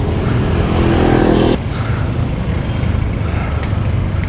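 Wind rushing over a bicycle-mounted camera microphone, with road and traffic noise while riding. A motor vehicle's engine hum sits over this for the first second and a half, then cuts off abruptly.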